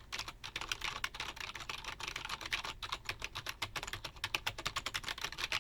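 Rapid typing on a Furycube IP98 wired membrane keyboard, a quick run of soft key presses.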